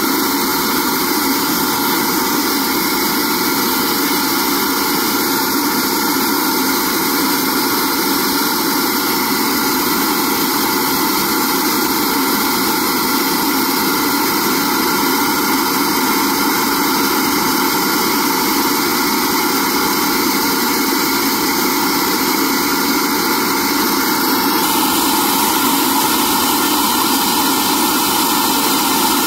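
Air flow bench running steadily, its motors pulling air through an intake manifold at about 350 cfm with a continuous rush of air. The tone shifts slightly near the end.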